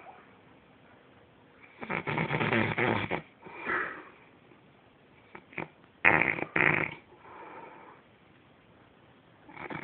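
A man snoring in deep sleep: a long loud snore about two seconds in, a shorter one right after, then two short loud snores about six seconds in, with quiet breathing between.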